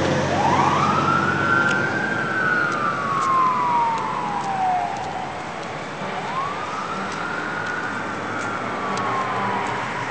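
Fire department emergency vehicle siren on a slow wail: two cycles, each rising in about a second and a half and falling more slowly over about three seconds. It fades slightly as the vehicles pull away, over steady traffic noise.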